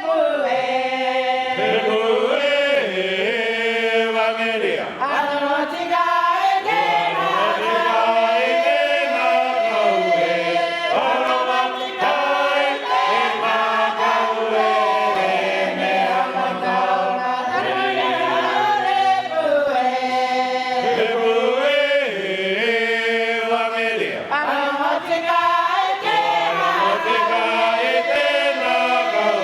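Cook Islands church choir singing a Cook Islands Māori hymn unaccompanied, in several-part harmony with long held chords.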